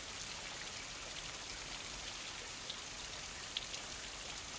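Steady, rain-like hiss with a few faint, scattered ticks.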